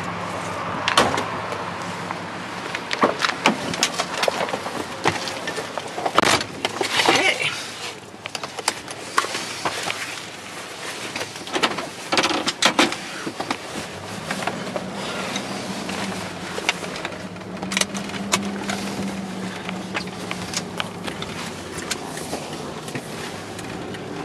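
Pickup truck: a run of knocks and thumps in the first half as the driver gets into the cab, then the truck running and driving, with a steady engine hum from about halfway on, heard inside the cab.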